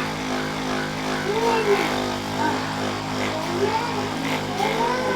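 An electric massager humming steadily while the back is worked on, its motor tone holding one pitch. Faint voices are heard under it.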